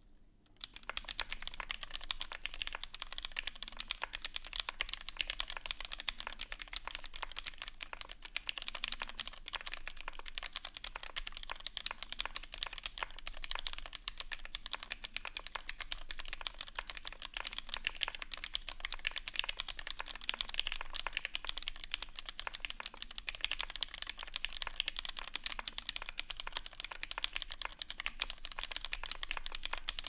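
Fast, steady touch-typing on an Alice-layout mechanical keyboard with lubed vintage West German Cherry MX Black linear switches, GMK keycaps, a POM half-plate and neoprene dampening in an aluminium case. A dense stream of keystroke clacks starts about half a second in and goes on without a break.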